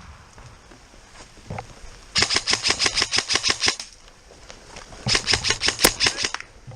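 Airsoft gun firing two strings of rapid shots, about seven a second, each lasting about a second and a half with a short pause between them.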